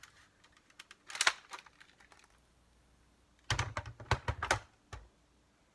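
Hard plastic clicks and knocks from a Nerf Longstrike blaster being handled as its barrel extension is detached. A few sharp clicks come about a second in, then a quick run of knocks and thuds between three and a half and five seconds in as the parts are set down on the table.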